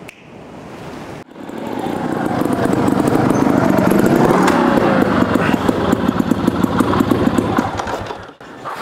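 2024 GasGas GP 300 trials bike's carbureted two-stroke engine revving up and down under load as it is ridden over obstacles. It builds about a second in, is loudest through the middle and dies down near the end.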